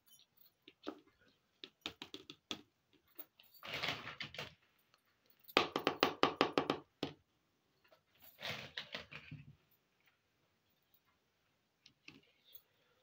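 Small plastic toy kitchen pieces clicking and rattling as they are handled and set down: scattered light taps, then three spells of quick clattering, the loudest around the middle.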